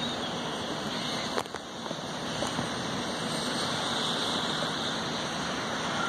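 Steady, even hiss of outdoor background noise, with a faint click about a second and a half in.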